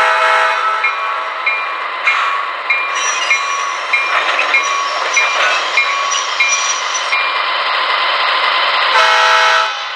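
Onboard sound system of an MTH HO-scale GE ES44AC model locomotive playing its departure sounds through the model's small speaker. A short horn blast comes at the start and another about nine seconds in. In between, the diesel engine runs and the bell rings about twice a second, stopping about seven seconds in.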